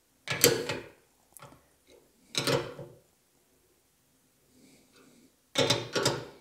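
Short rasping mechanical sounds of a Newtonian telescope's secondary-mirror tilt screws being turned during laser collimation. There are three main bursts about a second and a half to three seconds apart, the last a close double near the end, with a few fainter clicks between.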